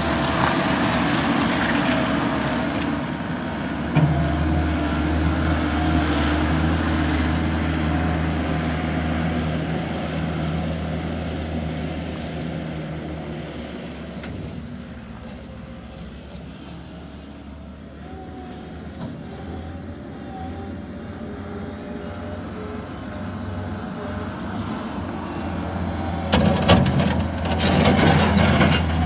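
Gehl skid steer loader's engine running steadily. It gets quieter in the middle and louder again, with a run of knocks and clatter near the end.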